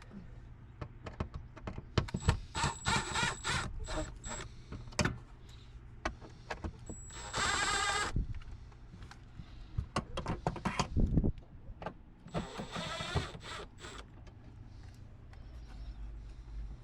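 A small electric motor whirring in three short runs, about two, seven and twelve seconds in, the middle one the loudest, with many sharp clicks and knocks of handling between them.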